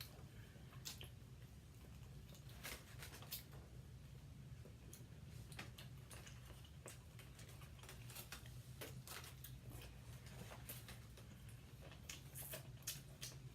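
Quiet eating sounds: scattered faint clicks and taps, several times a second at moments, over a low steady hum.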